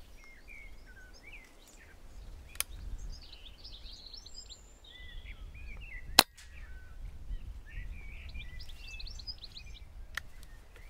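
A single shot from a silenced air rifle about six seconds in, sharp and by far the loudest sound, with birds chirping throughout. A smaller click comes about two and a half seconds in.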